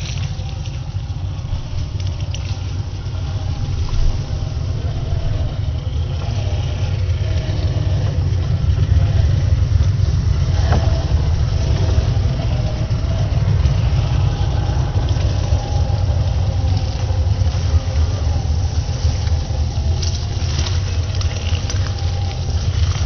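Traxxas TRX-4 radio-controlled crawler truck driving: its electric motor and geared drivetrain whine faintly over a steady low rumble, with a sharp click a little before the middle.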